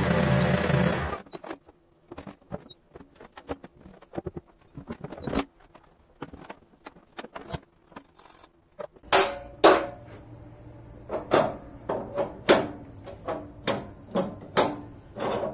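A loud, steady machine sound stops abruptly about a second in. Then come scattered metallic clinks and knocks as the rear rototiller's hitch and drive parts are handled and fitted by hand, growing louder and more frequent in the second half.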